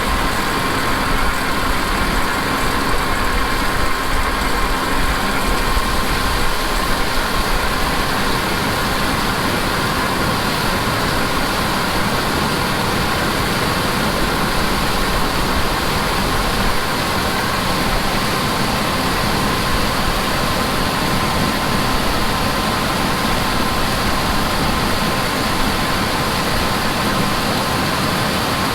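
Heavy farm machinery running steadily under harvest load: a constant engine drone with a steady whine above it, without let-up.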